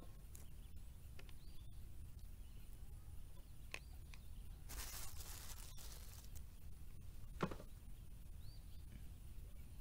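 Quiet outdoor ambience: a steady low wind rumble with a few faint bird chirps, and a brief rustle of handling about five seconds in.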